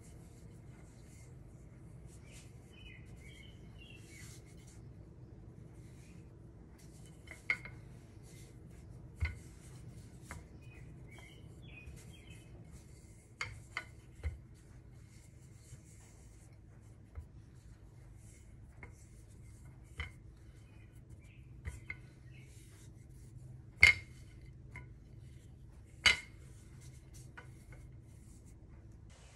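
Wooden rolling pin rolling out bread dough on a stone countertop, with scattered sharp clicks and knocks as the pin and hands touch down on the counter; the two loudest knocks come near the end. Faint bird chirps are heard now and then over a steady low hum.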